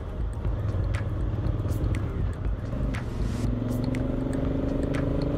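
Motorcycle riding at road speed: wind rush and rumble with the engine's hum underneath, the engine note turning steady and clearer about halfway through, with scattered sharp ticks.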